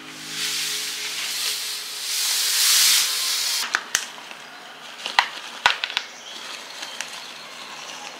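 Plastic bag rustling and crinkling for about three seconds. Then a run of scattered sharp clicks as organic fertiliser pellets are poured from a small plastic bag and drop into a planter box.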